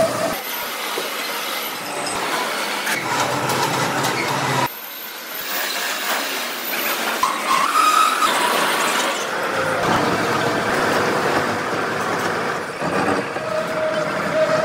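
Steady heavy-machinery noise in a metal workshop that changes abruptly several times. Near the end a large lathe is running, turning a rough steel block and cutting chips off it.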